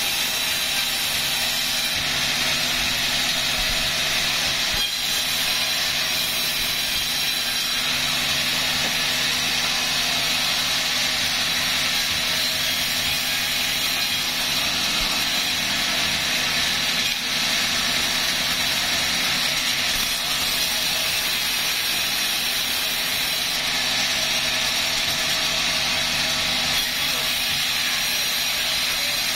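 Sawmill machinery running steadily, a constant loud mechanical drone with a high hiss-like whine.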